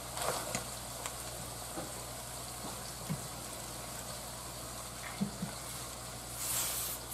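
Ground meat with chopped onion, celery and bell pepper frying in a skillet, a faint steady sizzle, with a few light clinks of a utensil and a brief louder hiss near the end.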